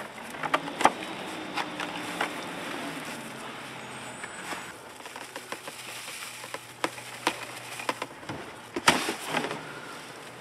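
Potting mix poured from a bag into a plastic pot and pressed down by gloved hands: soil pattering, with scattered clicks, rustles and knocks of handling, loudest about nine seconds in.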